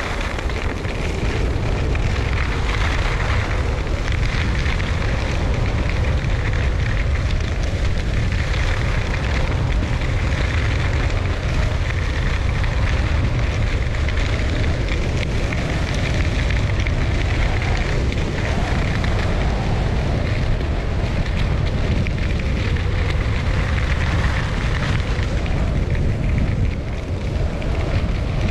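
Atomic Redster G9 skis carving on groomed, packed snow, a steady scraping hiss that swells and fades every few seconds through the turns, under heavy wind rumble on the GoPro's microphone from the speed of the descent.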